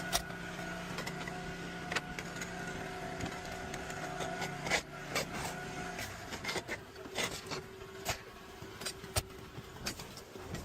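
A string of sharp knocks and clicks at uneven intervals, as from roofing work, over a steady machine hum that cuts off about six seconds in.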